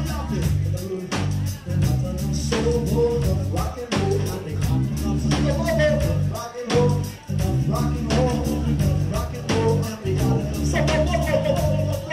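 Backing-track song with a sung vocal over a steady drum beat, in an upbeat ska or rock style.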